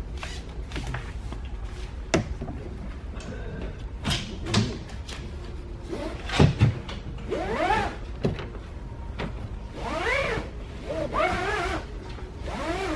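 Tie-down strap being handled around a plastic kayak: a few knocks of the buckle against the hull and short squeaks that rise and fall in pitch as the strap rubs over the plastic, most of them in the second half.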